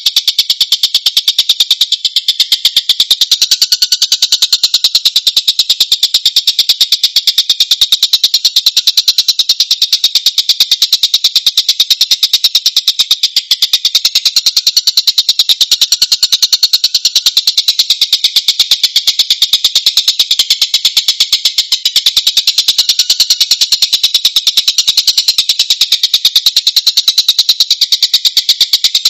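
Tengkek (kingfisher) call on a masteran tutor recording: a rapid, unbroken stream of harsh, high chattering notes, fast and tightly packed.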